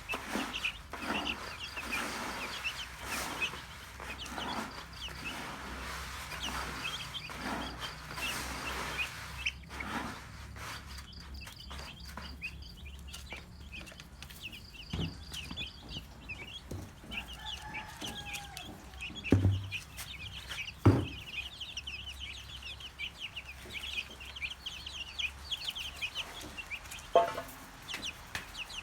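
A brood of chicks peeping continuously in many quick high chirps, with a hen's lower clucking, denser in the first part. A few louder single clucks or knocks stand out in the middle and near the end.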